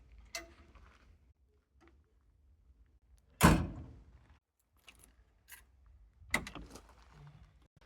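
An excavator cab door banging shut about three and a half seconds in. A second, lighter knock comes about three seconds later, with small clicks and rattles around both.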